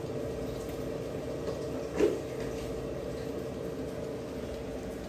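Steady whirring hum of an air fryer running from a 1000 W pure sine wave power station's inverter, drawing about 880 W, with the station's cooling fan. A single short knock about two seconds in.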